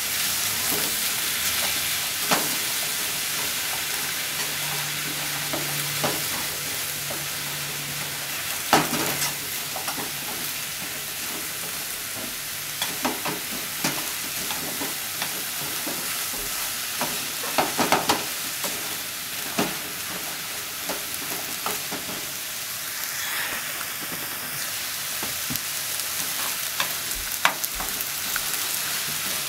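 Cabbage and enoki mushrooms sizzling as they stir-fry in a frying pan, with a steady hiss. Wooden utensils scrape and knock against the pan now and then as the vegetables are tossed.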